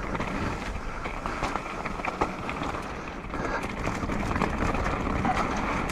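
Mountain bike descending a rooty dirt trail: tyres rumbling over the ground, with frequent clicks and knocks as the bike rattles over roots and bumps, one sharper knock about two seconds in.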